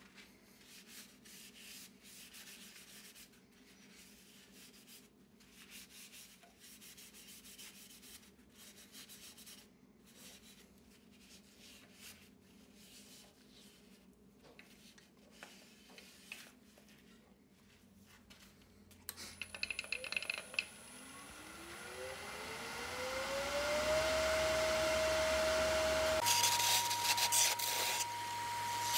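Cloth rubbing over a walnut turning on a wood lathe, faint and soft. About twenty seconds in, the lathe motor starts and spins up with a rising whine, then near the end the whine steps up in pitch and a parting tool scrapes loudly into the spinning wood.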